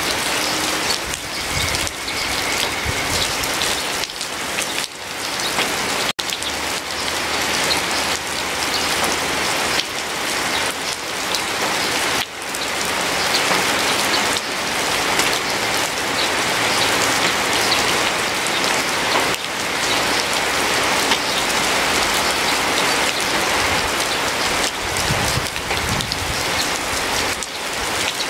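Steady heavy rain, a dense hiss of falling drops, briefly cutting out about six seconds in.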